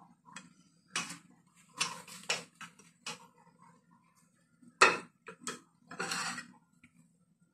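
Kitchen tongs clinking and scraping against an aluminium steamer tray and ceramic plates as steamed momos are lifted out and set down: a string of irregular clicks, the loudest about five seconds in, over a faint low hum.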